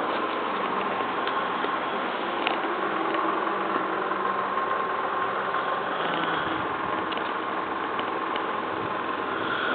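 A sleeping person snoring over a steady mechanical hum.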